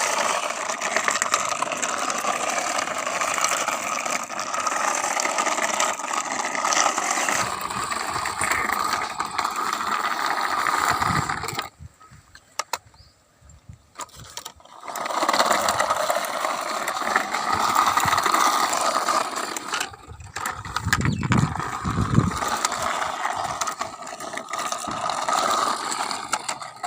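Toy bulldozer's plastic gears whirring and clicking steadily as it runs. It stops for about three seconds near the middle, then starts again.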